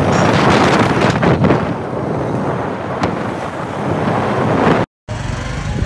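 Wind buffeting the microphone: a loud, steady rushing noise with no clear tone, broken off briefly near the end.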